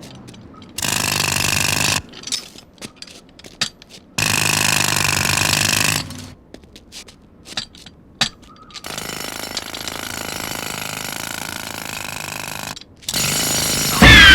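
Pneumatic jackhammer breaking pavement, running in bursts of one to four seconds with short pauses and clicks between them. A sudden, much louder sound with gliding tones cuts in at the very end.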